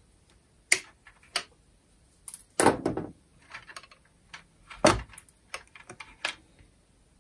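Scattered sharp clicks and knocks of hand work on a Makita DCF203 fan's plastic housing: side cutters snipping through a plastic cable tie on the motor wiring, then the wires and plastic parts handled. The loudest knocks come around the middle and just before two-thirds of the way through.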